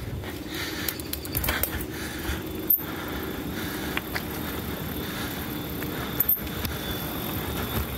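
Stumpjumper mountain bike riding fast down a dirt singletrack: tyres rumbling over dirt and leaves, with wind buffeting the microphone. A few sharp rattles and knocks from the bike come about a second and a half in and again around six seconds.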